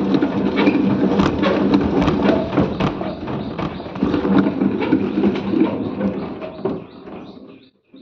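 Samsung top-load washing machine running, a steady hum under rapid, irregular clicking and knocking from the drive and gearbox, which has a fault; it stops near the end.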